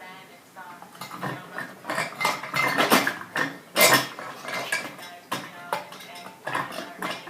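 Irregular clinking and clattering of glass and metal parts of a ceiling fan light kit being handled and fitted, a string of sharp knocks loudest about four seconds in.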